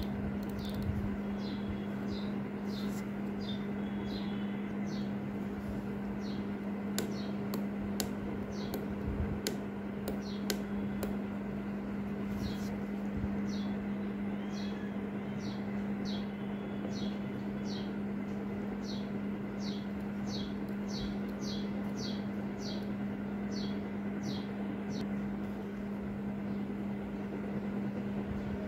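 A steady low hum runs throughout, with a bird chirping in the background in short, falling chirps. The chirps come irregularly at first, then about two a second through the middle and later part. A few light clicks come in the first third.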